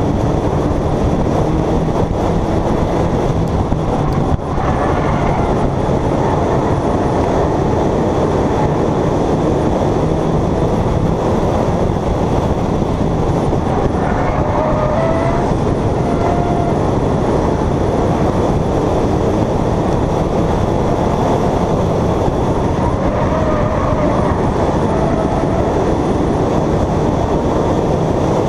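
Onboard sound of a Bonestock race car at speed on an oval: a loud, steady rumble of engine, wind and road noise, with a brief drop about four seconds in.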